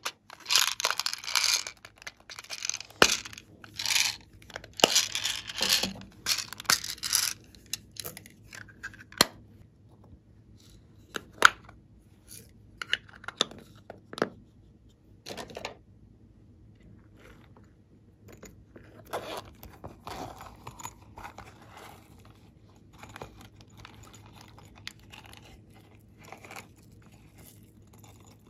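Small cardboard packets torn open and crinkled in hand, in loud crackling bursts over the first eight seconds or so. After that come sparser sharp clicks and short rustles as small plastic pieces are handled.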